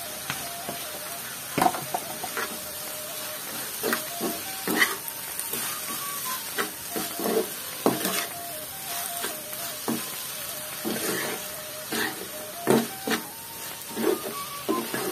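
A metal spoon stirring and scraping chopped amaranth greens around a nonstick kadai, with irregular scrapes and knocks against the pan every second or so, over the greens sizzling in hot oil.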